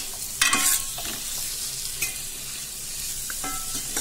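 Vegetables, beans and spice powders sautéing in oil in a stainless steel pot, sizzling steadily while a steel spoon stirs them. The spoon scrapes and clinks against the pot a few times.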